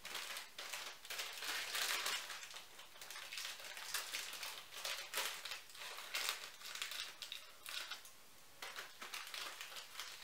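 Crinkling and rustling of plastic food packaging as it is handled and cut open with scissors, in irregular crackly bursts with a short pause near the end.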